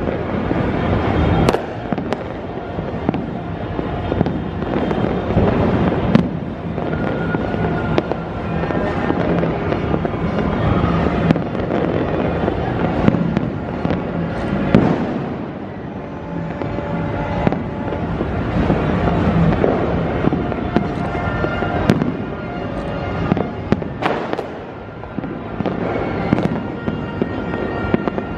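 Fireworks and firecrackers going off without a break: dense rapid crackling with frequent sharp bangs, several of them standing out above the rest.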